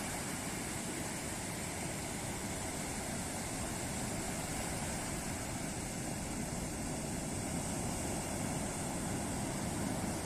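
Ocean waves breaking on a beach: a steady, even rush of surf.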